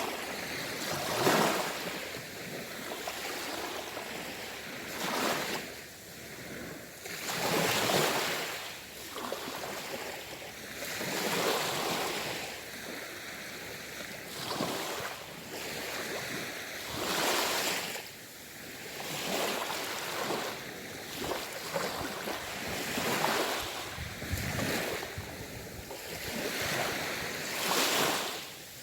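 Ocean waves breaking and washing up the shore, a rushing surge that swells and fades every few seconds, about nine times.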